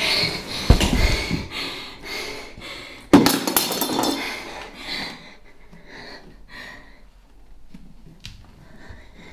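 Loud crashes of something breaking: one about a second in and a bigger one about three seconds in, each dying away, then scattered softer knocks.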